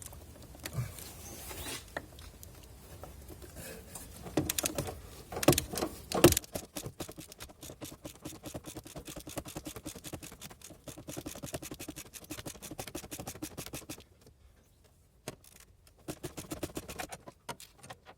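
Hand tools on the car: a few sharp metal knocks, then several seconds of fast, even clicking from a ratchet wrench turning a bolt, with another short run of clicks near the end.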